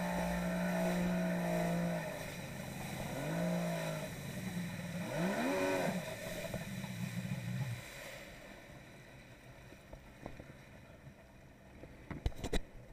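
Polaris SL 900 personal watercraft's two-stroke three-cylinder engine running at a steady throttle, eased off about two seconds in, then blipped twice in short rising-and-falling revs before fading to quiet about eight seconds in. A few sharp clicks near the end from handling of the camera.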